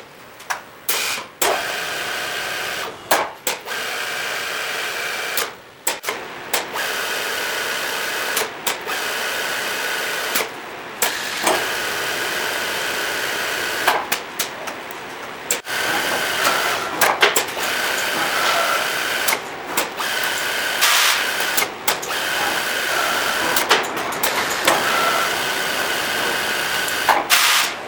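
Cam-operated automatic lathe running through its machining cycles, sped up: a steady mechanical whine with high tones that change every second or two, broken by sharp clicks and short dips as the cam steps through its strokes.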